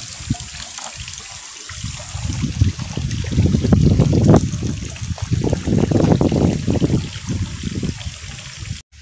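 Hands splashing and swishing in shallow pond water, washing at the water's edge, in irregular surges that are loudest in the middle.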